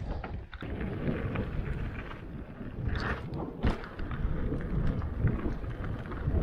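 Giant Stance mountain bike rolling along a dirt trail: steady tyre rumble and rattle from the bike, with wind on the microphone and a couple of sharp knocks about three seconds in and again half a second later.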